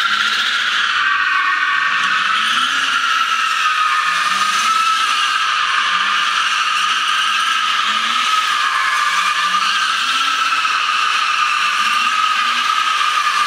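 Car tyres squealing continuously on a concrete floor as a rear-wheel-drive BMW 3 Series coupe drifts in circles. The squeal wavers slightly in pitch, with the engine revving up under it about every second and a half.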